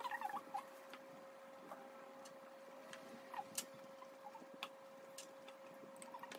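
Scattered light clicks and taps of metal forks against ceramic plates while filling tortillas with steak and vegetables, over a faint steady hum.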